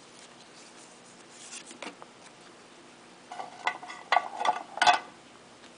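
Trading cards being handled and sorted by hand: faint soft clicks, then a flurry of sliding and rubbing noises during the second half, ending in a sharp click.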